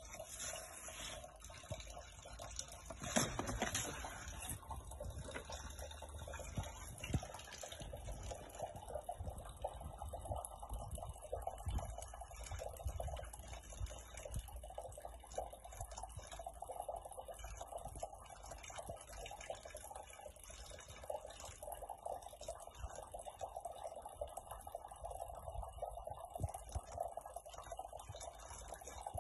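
Faint, steady running water, with one brief louder sound about three seconds in.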